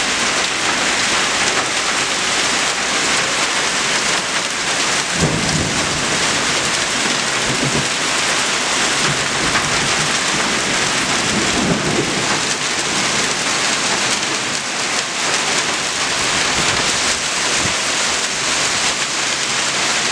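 Hailstorm: hail and heavy rain pelting down as a dense, steady hiss, with brief low rumbles about five seconds in and again near twelve seconds.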